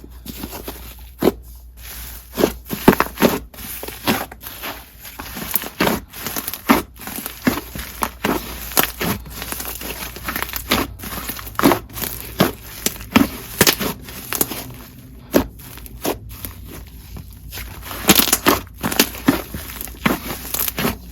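Fluffy clay slime being squished, poked and inflated by hand: sharp pops and crackles come at irregular intervals over a soft, sizzly crackling.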